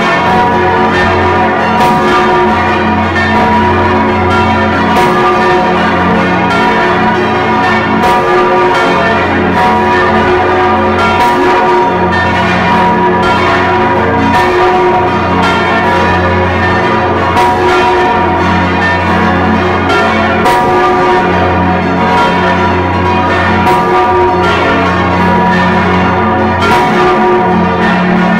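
The large Stephanus church bell of St. Stephan swings and strikes about once a second, heard close up from inside the belfry. Other bells of the peal ring together with it, so the hum and strike tones overlap and swell and fade in a slow rhythm. The sound is somewhat muffled because the microphone was damped against the loudness.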